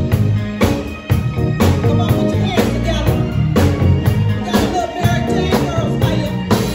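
Live band playing with no lead vocal: a drum kit keeps a steady beat under electric bass, guitar and keyboard.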